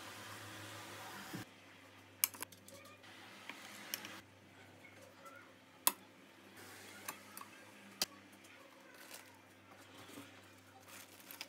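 Food being set onto a ceramic dinner plate with metal serving tongs: scattered sharp clicks and taps of tongs and food against the plate, over a faint steady hum.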